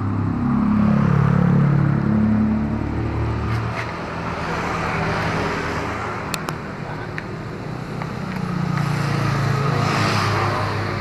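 Road traffic passing close by. One vehicle's engine drone swells and fades over the first few seconds, and another passes near the end, with a few light clicks in between.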